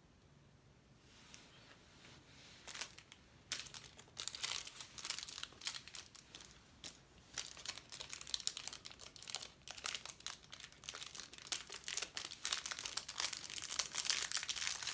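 Thin clear plastic bag crinkling as it is handled with small eraser toys inside, in quick irregular crackles that start about two seconds in and get busier toward the end.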